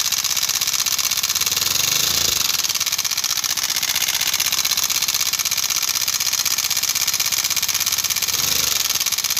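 Honda CD 70 style single-cylinder four-stroke motorcycle engine running, recorded up close, with a fast, even ticking clatter throughout. The pitch rises and falls briefly twice. The mechanic takes the noise for a worn timing chain together with a noisy piston, following over-revving after an engine rebuild.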